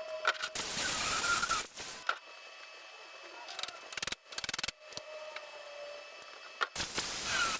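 Sheet metal being cut: stretches of harsh, rasping noise with squealing tones, broken by a quieter pause with a short run of rapid clicks about four seconds in.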